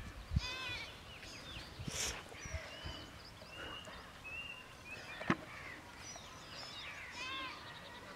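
Birds chirping with two short, high bleating animal calls, one about half a second in and one near the end. Two sharp knocks stand out, one right at the start and one about five seconds in.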